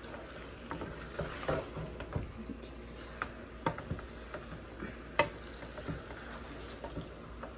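Wooden spoon stirring beef keema and chunks of green capsicum in a metal pot, with irregular scrapes and knocks of the spoon against the pot, the sharpest about five seconds in, over a faint sizzle of the mince cooking.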